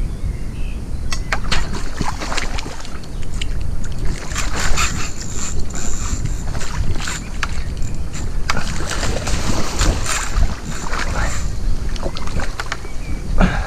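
Wind rumbling on the microphone, with scattered clicks and rustles throughout.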